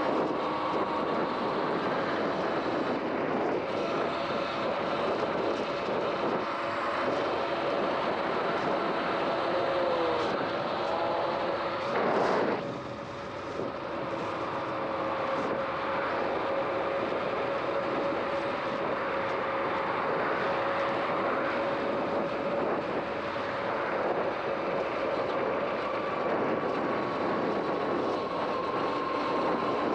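Sur-Ron X electric dirt bike's motor whining while riding along a road, several steady tones whose pitch drifts slowly with speed, over a constant rush of wind and tyre noise. A brief louder rush about twelve seconds in.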